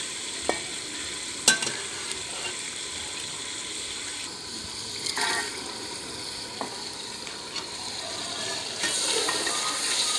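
Meat curry cooking in an aluminium pot with a steady sizzling hiss. A long metal ladle stirs it and knocks against the pot several times, with the loudest clack about a second and a half in.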